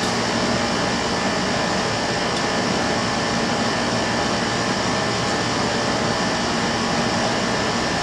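Carrier Infinity Series air conditioner's outdoor unit running with a steady, unchanging hum and rush of air.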